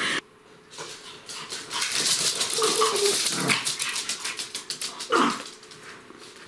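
Pomeranian dogs at play: a busy stretch of scrabbling and scuffling on a laminate floor, then a single bark about five seconds in.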